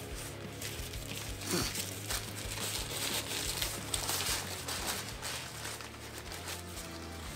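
Paper wrappers of McDonald's breakfast burritos crinkling and rustling as they are unwrapped by hand, in irregular crackles.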